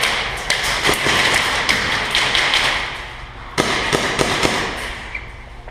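Airsoft gunfire in an indoor arena: scattered sharp clicks and cracks of shots and BBs striking surfaces, irregular, with a short lull about three seconds in.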